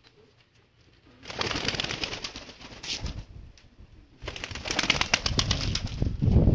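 Domestic pigeons cooing. About a second in, a loud dense crackling starts; it breaks off briefly near the middle and comes back for the rest.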